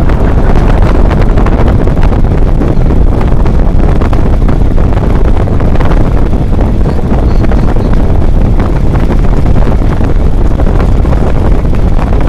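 Loud, steady wind buffeting on the microphone of a camera riding in a moving vehicle, with the vehicle's running noise underneath.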